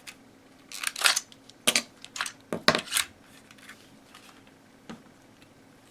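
Sharp clicks and clacks of hard plastic and metal parts and tools being handled on a work surface while an airsoft MP7A1 electric gun is taken apart, several in quick succession in the first half and one more near the end. A faint steady hum sits underneath.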